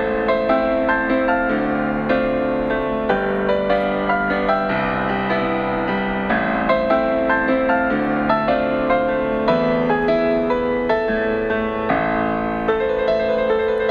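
Background piano music: a gentle, slow tune with evenly spaced notes.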